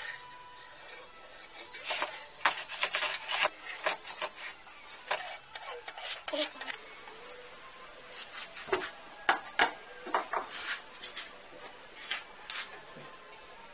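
Irregular light clicks, taps and scraping of wooden parts being worked by hand, coming in a few busy spells.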